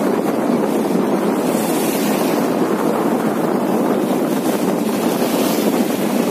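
Sea surf breaking and washing in over shallow water, mixed with wind on the microphone: a steady rushing noise.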